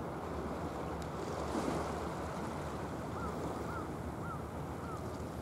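Steady rush of wind and sea water, with four short chirps about half a second apart in the second half.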